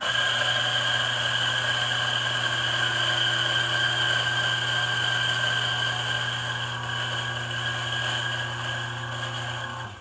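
DF64 single-dose coffee grinder's motor and 64 mm flat burrs grinding coffee beans with a loud, steady, shrill whine. It switches on abruptly and winds down just before the end.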